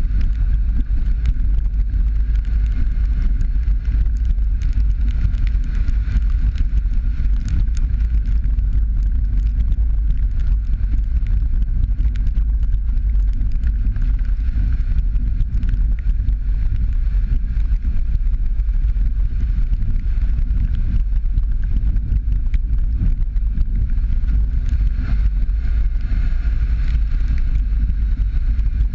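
Steady low rumble of a Jeep Patriot driving along a rough, wet dirt road, with scattered small clicks from the road surface.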